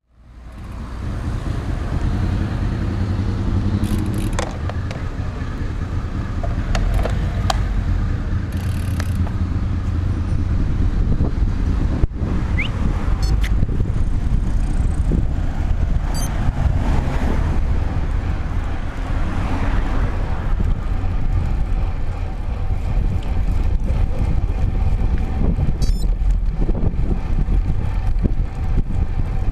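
Steady wind rush and road noise from riding a road bike, picked up by a handlebar-mounted camera's microphone, with a few sharp clicks along the way.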